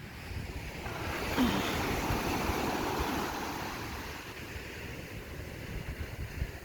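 Ocean surf: a wave breaks and washes in, swelling about a second in and fading away over the next few seconds, with wind rumbling on the microphone.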